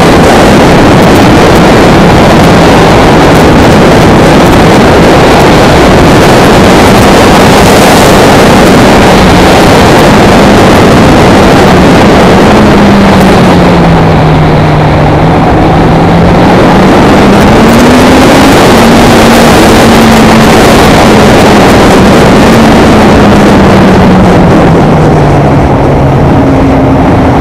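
Motorcycle engine running under way through a series of bends. Its note falls and rises again several times as the rider slows for corners and accelerates out. Underneath it is a loud, steady rush of wind noise.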